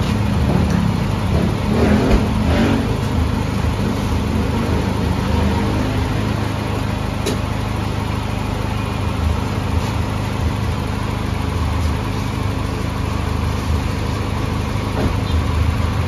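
Honda Civic's four-cylinder engine idling steadily, an even low running sound with no revving.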